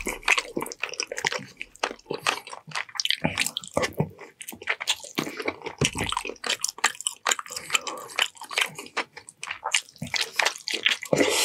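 Close-miked chewing and wet mouth sounds of a person eating, a steady run of irregular smacks, squelches and clicks.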